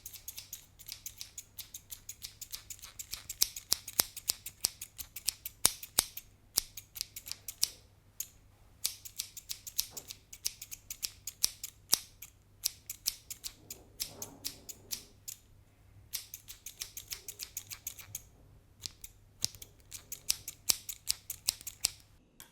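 Barber scissors snipping: quick runs of sharp, crisp snips, several a second, broken now and then by short pauses.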